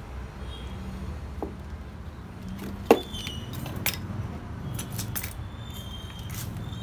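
Hand-handling noises as a peepal sapling is lifted and worked by its root ball: one sharp knock about three seconds in, the loudest sound, then a few lighter clicks and rattles.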